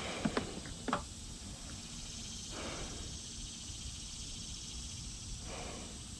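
Handling noise from wiring work inside a vehicle: a few light knocks in the first second, then a faint steady hiss broken by two brief rustles.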